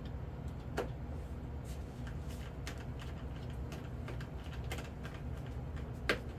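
Hand screwdriver driving a screw into the foam tail of an RC jet model: a few scattered small clicks and ticks, the sharpest about six seconds in, over a steady low room hum.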